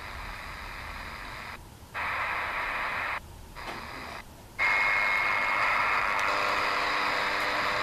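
DEGEN DE1103 shortwave radio hissing with static as it is tuned across the bands, cutting out briefly three times as the frequency jumps. About halfway through it settles on a louder signal, first with a steady high whistle and then a steady buzz: the weird buzzing signal that fills the band from about 3 to 12 MHz.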